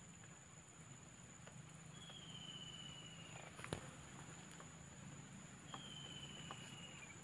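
Faint outdoor ambience: a thin, high whistled animal call, held about a second and a half and dropping in pitch at the end, heard twice. A steady high tone runs underneath, and there is a single sharp click a little past the middle.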